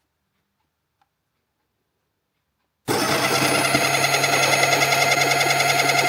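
Near silence, then about three seconds in a Baratza Encore ESP conical burr coffee grinder switches on abruptly and runs steadily with a fast ripple, grinding a batch of coffee beans at grind setting 30.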